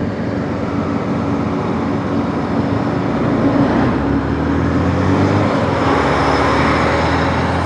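Yamaha YBR-G motorcycle's single-cylinder engine running steadily at road speed, with wind and road noise, while overtaking a truck; the noise grows a little louder about halfway through as the bike draws alongside the truck.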